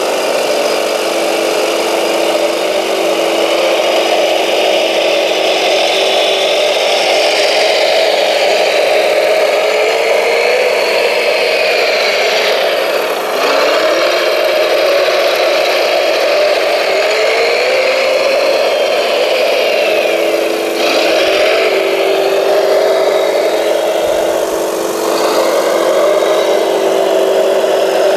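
Radio-controlled scale model Volvo L250G wheel loader running: a steady motor hum, with whines that rise and fall in pitch several times as the machine moves.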